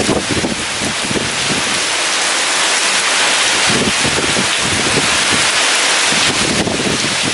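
Heavy rain pouring steadily in a storm, with gusts of wind rumbling and buffeting underneath.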